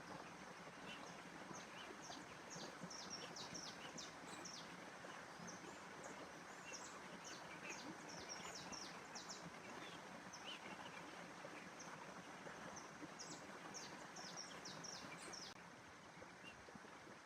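Faint outdoor nature ambience: small birds chirping in quick runs of short, high notes over a steady, even background hiss. The chirping stops near the end.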